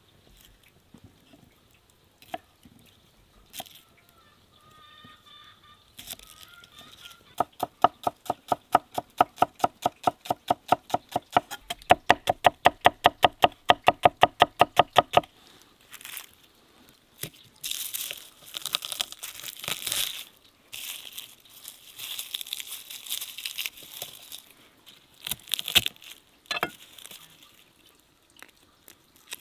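Knife chopping red onion on a thick wooden stump cutting board, quick even strokes about four a second for several seconds, with a short break partway through. Later comes a patchy crackling rustle of dry garlic skins being broken and peeled by hand.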